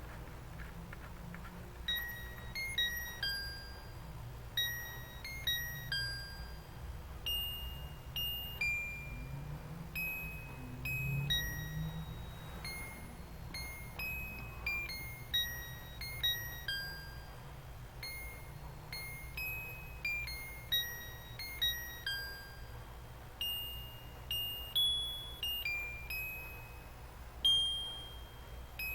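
Mr Christmas Lights & Sounds of Christmas Carolites playing a Christmas carol as a high, tinkling melody, one note at a time, starting about two seconds in. A low steady hum runs underneath.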